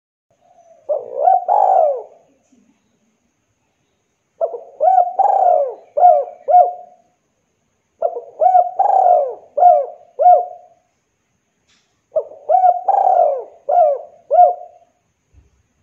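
Spotted dove (Javanese derkuku) cooing: four phrases a few seconds apart. The first is short. Each of the other three runs a few notes up to a longer coo and ends in two short clipped notes.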